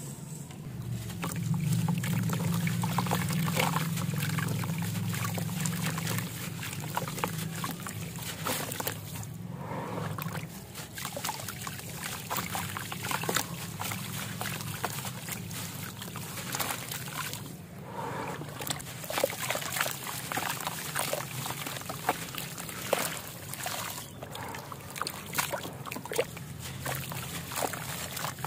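Fine sand dust pouring in a stream onto a heap in a plastic tub, then handfuls of it squeezed and crumbled by hand and falling back, with many small crackles throughout.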